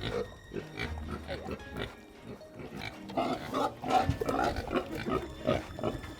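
Oxford Sandy and Black boar grunting and making short noisy sounds as it eats.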